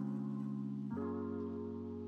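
Instrumental background music of held chords, changing to a new chord about a second in.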